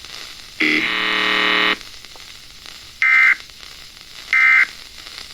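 Emergency Alert System broadcast: a harsh buzzing tone lasting about a second, then two short bursts of the end-of-message data tones, about 1.3 seconds apart.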